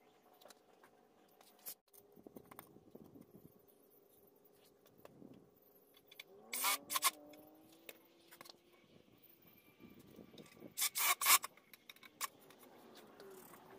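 Cordless drill driving screws into a wooden frame corner in two short bursts, about six and a half and eleven seconds in, the motor's pitch rising as it spins up on the first. Quieter rubbing and scraping of wood and hardware being handled between them.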